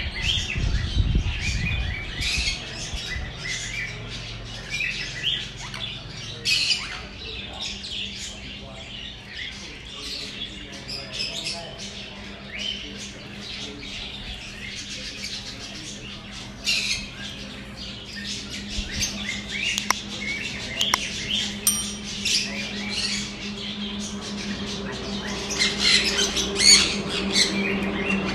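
A troop of macaques giving many short, high squeals and chirps, coming thickest in the last few seconds. A low steady hum grows underneath near the end.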